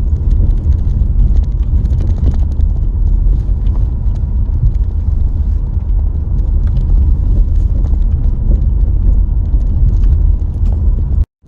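A car driving on a gravel road: a steady low rumble of tyres and engine, with scattered sharp ticks throughout. The sound cuts off abruptly just before the end.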